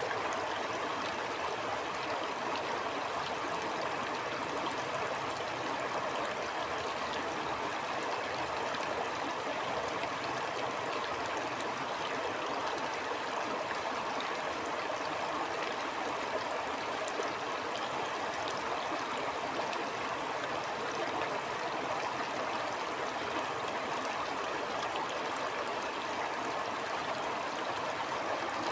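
Stream flowing steadily over rocks, a continuous even rush of water with fine splashing and gurgling.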